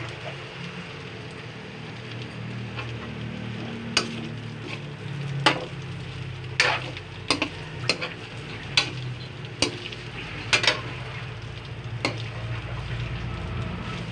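Metal ladle stirring and scraping in a steel wok, sharp clinks of metal on metal about once a second, over a steady sizzle of chopped hotdog, meatloaf and carrots frying.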